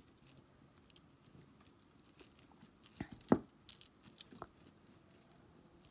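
Small clicks and rustles of beaded stretch bracelets being handled and shuffled in the hand, with a louder knock just after three seconds in.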